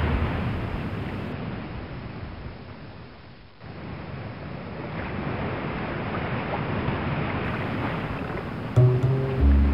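Sea surf, a rushing wash of noise that dies down about three and a half seconds in and then swells back. A few low musical notes enter near the end.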